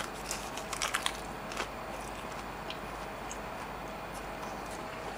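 A bite into a nori-wrapped rice hand roll. The dried seaweed crackles crisply, a quick cluster of crunches in the first second and a half, followed by a few faint clicks of chewing.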